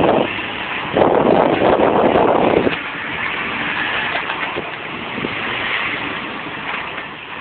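Jeep Wrangler descending a steep rocky slope at low speed: a steady vehicle noise with a few faint knocks of tyres on rock. A gust of wind buffets the microphone about a second in and drops away near the three-second mark.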